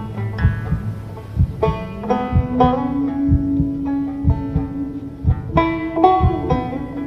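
Slow banjo picking: single plucked notes that ring and fade, over a held low tone that steps up in pitch about two seconds in.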